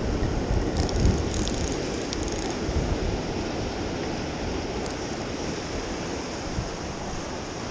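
Surf washing against jetty rocks, with wind noise on the microphone as the loudest part. A few light high ticks come between about one and two and a half seconds in.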